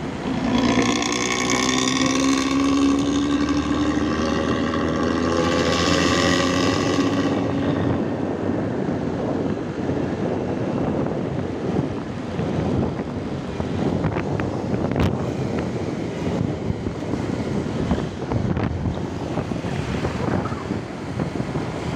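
Intercity bus engine with a snoring ('ngorok') exhaust, pulling hard for about seven seconds with its pitch rising slowly, then giving way to steady road and wind noise.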